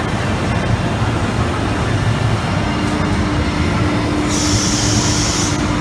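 Automatic-tool-change CNC router machinery running amid exhibition-hall din: a steady mechanical rumble, a steady hum that sets in about two and a half seconds in, and a hiss lasting about a second near the end.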